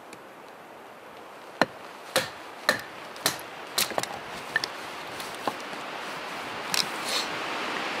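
Firewood being split by batoning a knife through it: about ten sharp, dry wooden knocks at uneven intervals, over a steady hiss that grows louder toward the end.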